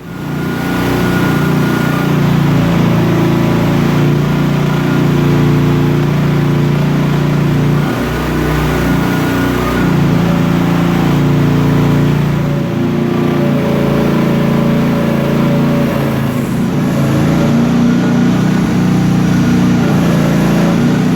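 Chinese mini excavator's small engine running at high revs close by, its pitch shifting as the machine is worked and sagging briefly twice.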